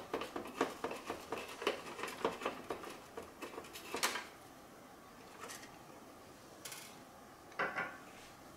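Hand screwdriver backing screws out of the plastic housing of a Roomba automatic clean base, a quick run of small clicks and scrapes that stops about four seconds in. A short clatter of handled parts comes near the end.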